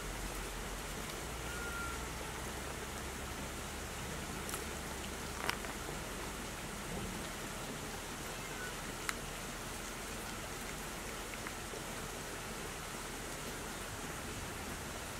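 Steady outdoor hiss, even throughout, with faint sharp clicks about five and a half and nine seconds in.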